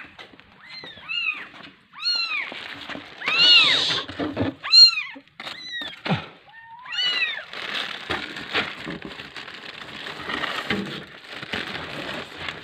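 A young kitten meowing over and over: short, high calls, each rising and then falling in pitch, one loud long one about three and a half seconds in. After about seven seconds the meows give way to rustling and rattling as dry cat food is poured from a plastic bag into a cardboard box.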